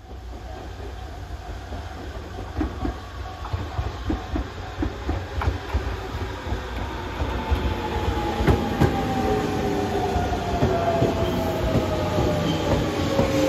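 Tobu 100 series Spacia electric express train pulling into the station, growing louder as it nears, its wheels clacking over rail joints in an uneven beat over a low rumble. In the second half a whine falls steadily in pitch as the train slows.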